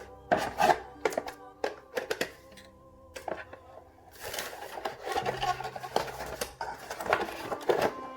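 Background music with held tones, with frequent sharp clicks and short rustles of items being handled over it.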